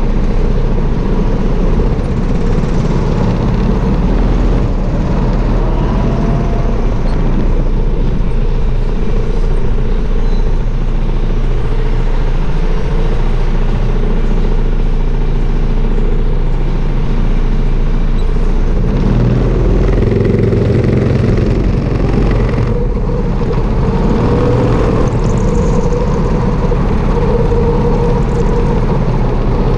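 Sodi RT8 rental go-kart engine running at speed, heard close up from a camera mounted on the kart, its note rising and falling through the corners over a steady low rumble.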